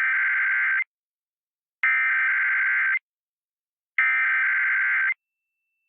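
Emergency Alert System SAME header: three bursts of buzzing two-tone digital data, each about a second long and a second apart, the coded header that opens an EAS test on a broadcast station.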